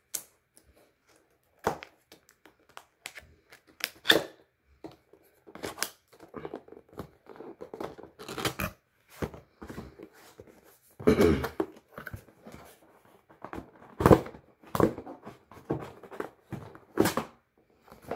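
Cardboard product box and its packaging being handled and opened by hand: an irregular run of rips, rustles and small knocks.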